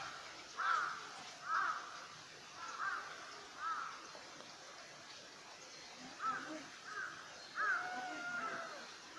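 Crow cawing: about eight short caws, mostly in pairs, with a pause of a couple of seconds in the middle.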